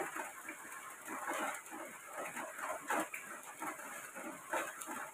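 Dry weaving strips being handled and plaited by hand: faint, irregular rustling with light clicks.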